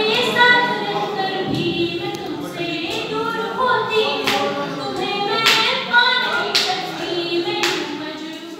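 A poet singing verses unaccompanied to a melody. From about halfway through, the audience claps in time, roughly once a second.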